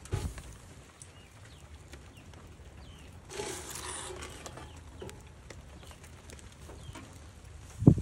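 A metal baking tray scraping as it is slid out of a cast-iron wood stove's oven compartment. A short knock comes at the start, the scrape about three and a half seconds in, and a heavy thump at the end.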